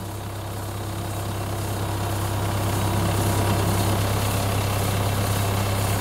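Hydraulic portable sawmill's engine running steadily at low throttle, its blade spinning, as the hydraulic head is raised; the sound grows gradually louder, and a faint steady whine fades out about four seconds in.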